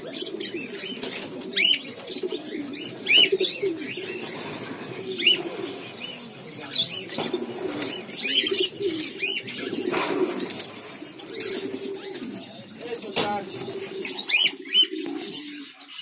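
A flock of Pomeranian pouter pigeons cooing continuously, with frequent high chirps from smaller birds and occasional clicks and wing flaps.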